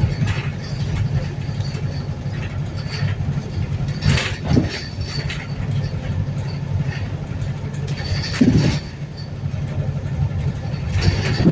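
Inside a Wright New Bus for London hybrid double-decker on the move: the steady low drone of its engine, with scattered knocks and rattles, the strongest about 4 s in and again about 8.5 s in.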